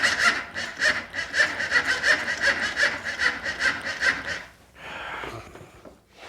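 Honda Foreman ATV's electric starter cranking the engine in an even, rasping rhythm of about five pulses a second without it catching, then stopping about four and a half seconds in. The mechanic believes the starter is dragging and takes it for a bad starter.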